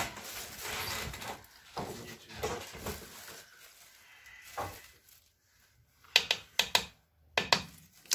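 Rustling as a plastic bag of spice is handled. After a short quiet gap comes a quick run of sharp plastic clicks as measuring spoons and spice containers are handled.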